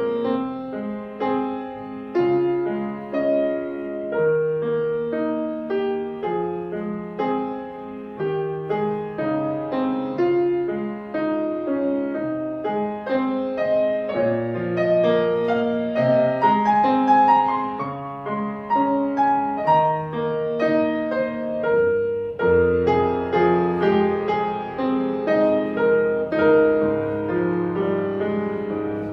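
Solo piano playing a piece in a steady stream of notes, with a short break about two-thirds of the way through before a low bass note comes in.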